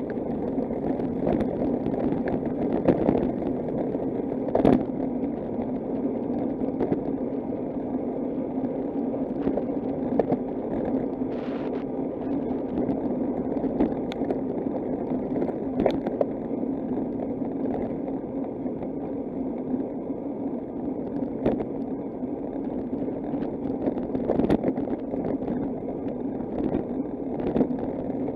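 Steady rumble of road and wind noise while riding a bicycle, with scattered clicks and knocks. A sharper knock comes about five seconds in.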